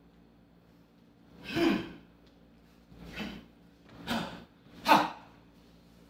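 Four short, forceful vocalised exhalations from a Hung Ga martial artist performing the Iron Wire form, each a sharp breathy burst with a quick falling pitch, the last and loudest near the end.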